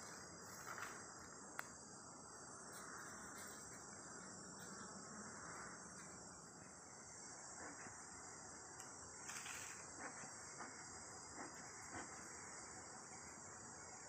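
A faint, steady, high-pitched chorus of insects trilling, with a few small ticks.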